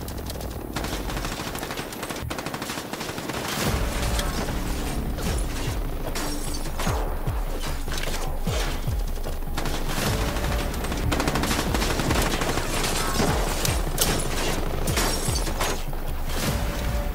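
Background music with a heavy beat, mixed with rapid bursts of rifle fire from an AR-style rifle.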